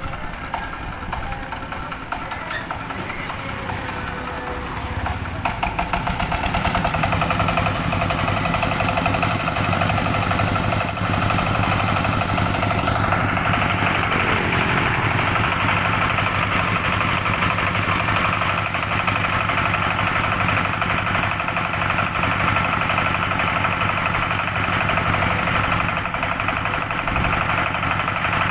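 Engine-driven rice threshing machine running, picking up speed about five seconds in and again about thirteen seconds in with a rising whine, then running steadily at the higher speed.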